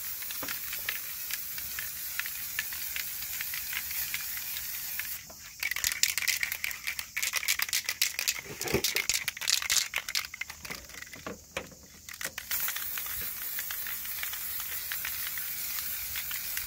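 Aerosol spray-paint can hissing steadily as touch-up paint is sprayed onto a car body panel. From about five seconds in, the hiss gives way to several seconds of rapid irregular rattling, typical of the can being shaken with its mixing ball clicking inside. The spraying hiss then resumes near the end.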